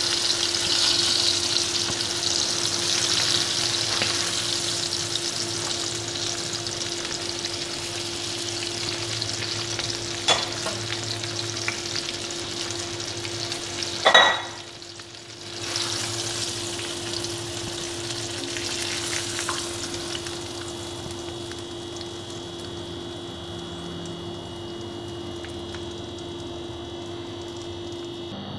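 Chicken leg pieces frying in a pan of hot oil, a steady sizzle that slowly grows quieter; the pieces are almost fully fried. A small click about ten seconds in and a sharp knock about halfway through, with a faint steady hum underneath.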